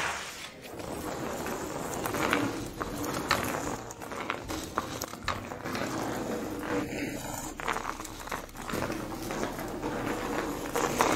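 Foley sounds recorded close up: irregular crunching, crackling and clicking as a towel-wrapped metal object is pressed and worked into sand, then a plastic rolling pin is handled on a wooden floor.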